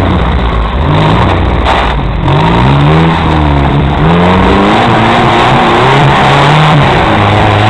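Off-road vehicle engine revving hard, its pitch climbing and dropping several times in quick succession.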